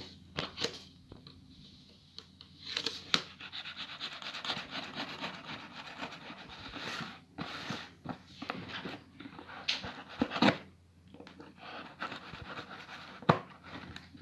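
Knife blade scraping and cutting through a cardboard box's tape and flaps, with cardboard and packing paper rustling as the flaps are pulled open, and a few sharp clicks along the way.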